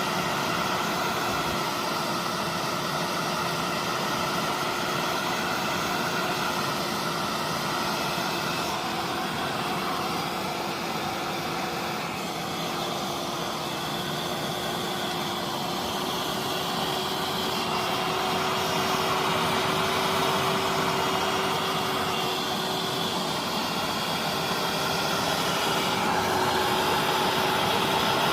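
Hair dryer running steadily, a constant motor hum under a rush of blown air, heating the adhesive to seal a smartphone's back cover.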